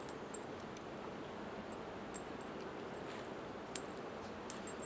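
Steady rushing outdoor background noise with a few sharp ticks scattered through it.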